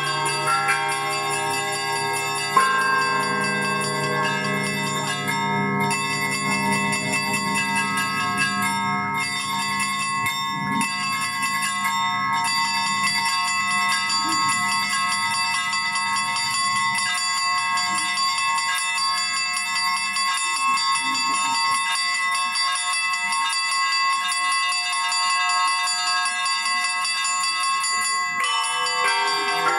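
Russian Orthodox church bells rung by hand: a dense, continuous ringing of many smaller bells over the deep hum of a large bell. The large bell is struck about two and a half seconds in and dies away around halfway through.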